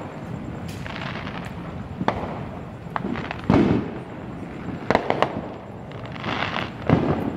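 Fireworks going off: about five sharp bangs, the loudest about halfway through, with stretches of crackling between them.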